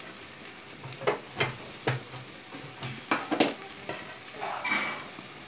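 Marinated chicken sizzling faintly over an open flame on a stainless steel grill, with a run of sharp metallic clinks and knocks in the first three and a half seconds, like pots and utensils being handled.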